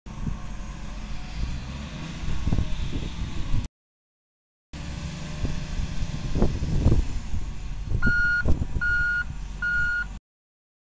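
Hitachi ZW220 wheel loader's diesel engine working under load as the bucket is pushed into a coal pile, with the sound cutting out for about a second midway. Near the end its reversing alarm beeps three times, about two-thirds of a second apart.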